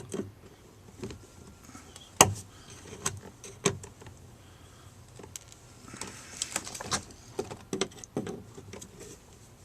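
Plastic tabs being snapped off a speaker adapter bracket by hand: a series of sharp clicks and cracks, the loudest about two seconds in, with rustling handling of the plastic parts.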